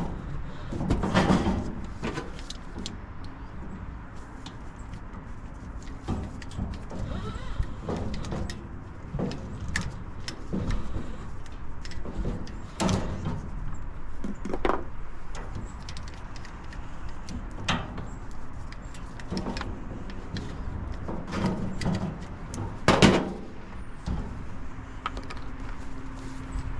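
Irregular knocks and clatters over a steady low rumble. The loudest clatters come about a second in, around halfway, and again near the end.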